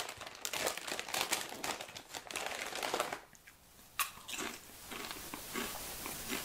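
Plastic crisp bag crinkling as a hand rummages inside it for about three seconds. About four seconds in, a crisp is bitten with a sharp crunch, followed by crunchy chewing.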